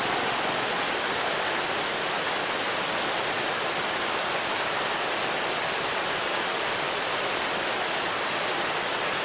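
River water rushing steadily over a low waterfall and rapids, a constant hiss with no breaks.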